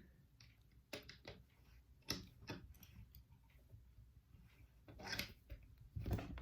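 Wire being rotated in a vise and the vise being worked by hand: scattered light metallic clicks and knocks at irregular intervals.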